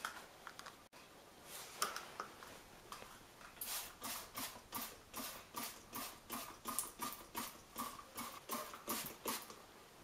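Rhythmic scrubbing inside a front-loading washing machine's door opening, about three strokes a second, settling into a steady rhythm a few seconds in after some scattered rubbing sounds.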